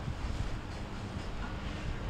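Wind buffeting the microphone over the low, steady noise of motorboat engines and water.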